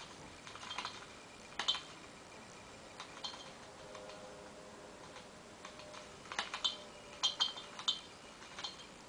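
Small dry clicks and scratches in short bunches, several times, over a faint hiss. They come thickest near the end. A faint steady tone is heard for about two seconds in the middle.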